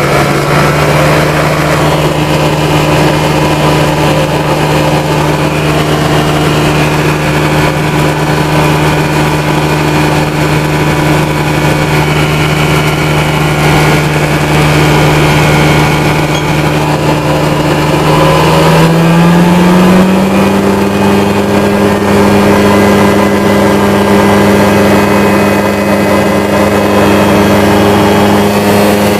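Minimax ultralight's engine running steadily while the aircraft rolls along the ground. About two-thirds of the way through it speeds up to a higher, steady pitch as power is added.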